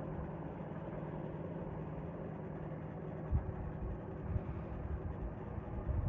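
A vehicle engine running steadily, with a few low thumps in the second half.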